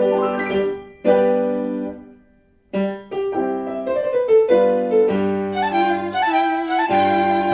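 Background music of piano with bowed strings, a melody of held and moving notes that briefly breaks off near silence before picking up again, busier and higher.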